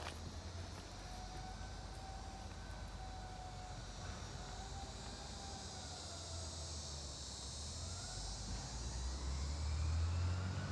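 Insects buzzing steadily while a garbage truck's engine rumble builds from about eight seconds in, growing louder toward the end, with a faint whine gliding slowly up and down in pitch.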